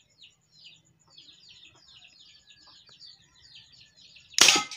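Small birds chirping steadily in quick repeated notes, then about four seconds in a single sharp, loud bang as a homemade PVC alcohol-combustion marble gun fires.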